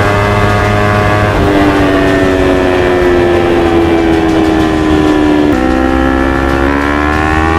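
Kawasaki Ninja 250 FI parallel-twin engine running through a full-system Akrapovic GP exhaust while riding. The note steps down about a second and a half in and eases slowly lower, steps again near the middle, then rises steadily as the bike accelerates.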